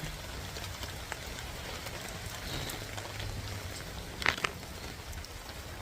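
Steady rain falling, with drops pattering and ticking on surfaces. About four seconds in there is a brief, sharper double knock.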